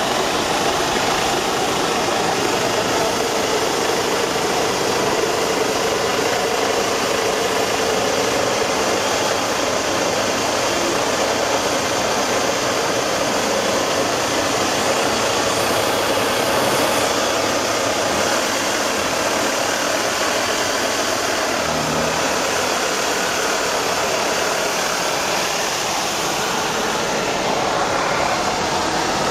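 Tatra 813 8x8 trial truck's diesel engine running steadily as the truck crawls slowly over rough ground.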